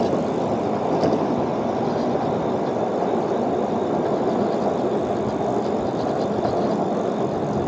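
Steady wind rush and road noise while riding an electric dirt bike, heard as an even rushing on the microphone with no distinct events.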